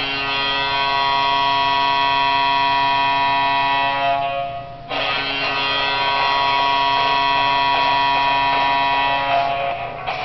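Ice hockey arena goal horn of the Orlando Solar Bears, sounding in two long blasts: the first lasts about four seconds, then it cuts out briefly and sounds again for about five more seconds.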